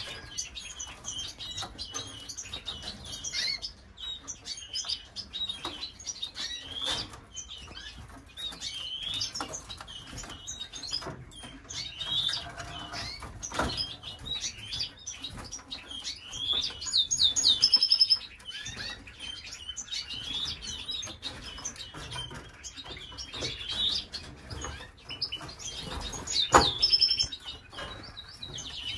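Caged canaries chirping and calling, with quick trills, wing flutters and frequent sharp taps and clicks. There is a louder burst of trilling about seventeen seconds in and a sharp knock about twenty-six seconds in.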